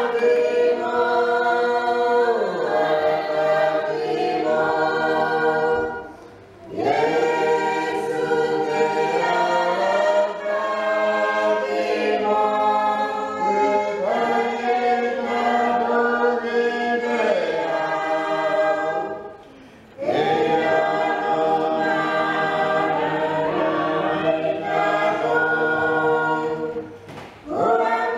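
A church choir or congregation singing a hymn unaccompanied, many voices in harmony. The singing comes in long held phrases with brief breaks between them.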